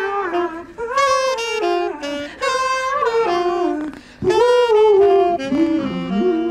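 Saxophone playing a melody in phrases of about a second each, with gliding bends between stepped notes.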